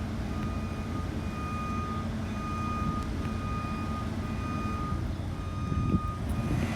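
Backup alarm on construction equipment beeping steadily, one half-second beep about every second, over a low steady engine rumble.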